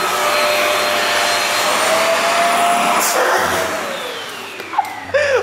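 Vacuum cleaner motor running loudly and steadily, then winding down with its pitch falling after about three and a half seconds.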